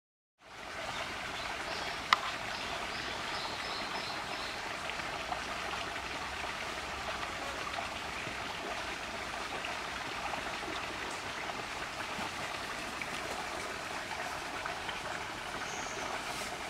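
Steady flowing water, like a small stream trickling, with one sharp click about two seconds in.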